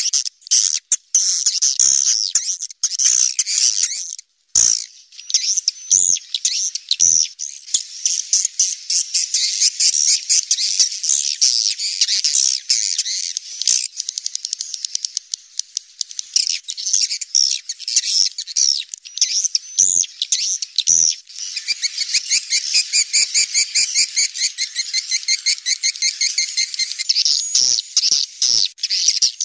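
A flock of swiftlets calling: dense, high-pitched twittering chirps. A little over two-thirds of the way through, it turns into a fast, even rattle of rapidly repeated notes.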